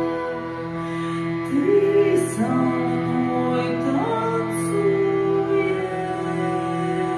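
Hurdy-gurdy playing a steady drone. About a second and a half in, a woman's voice comes in over it, singing a slow melody that slides between notes.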